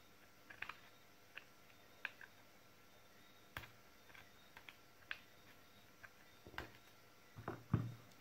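Faint, scattered small clicks and ticks of a small screwdriver tip working against the metal ends of NiCd battery cells, with a louder knock near the end.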